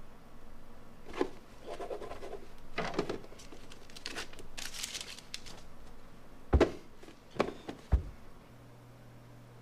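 Paper rustling and crinkling as a slip of paper is handled and folded, followed by three sharp knocks on the desk or box, the loudest sounds here.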